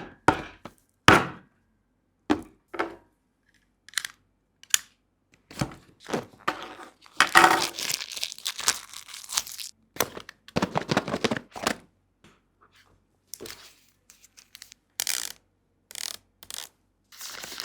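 Smartphone box being unpacked by hand: a run of sharp clicks and knocks of cardboard and plastic packaging, with two longer stretches of tearing and crinkling about halfway through.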